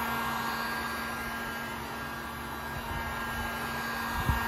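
Master electric heat gun running steadily, its fan giving a constant blowing hiss with a low motor hum. A single short knock sounds near the end.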